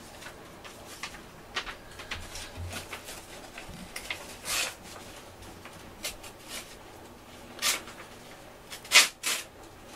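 Scattered short rustles and clicks over quiet room tone. The loudest comes about nine seconds in, quickly followed by another.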